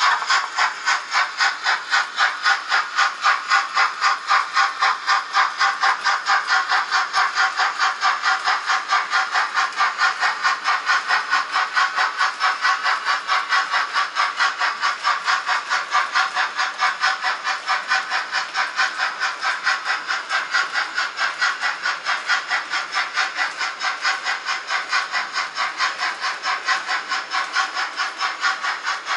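Model steam locomotive of a Prussian G 8.1 (class 56) chuffing at a steady beat of about four hissing chuffs a second as it hauls a long, heavy freight train up a grade.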